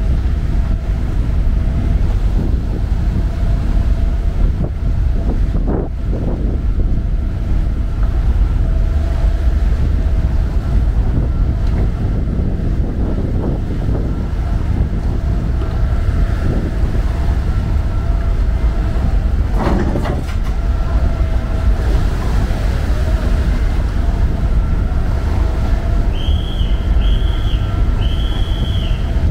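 A ferry's engines run steadily with a constant whine, under heavy wind noise on the microphone. A knock comes about twenty seconds in, and three short high beeps sound near the end.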